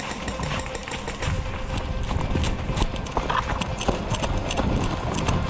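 Footsteps crunching in snow at a quick, irregular pace, with a low rumble of movement and gear handling on the microphone.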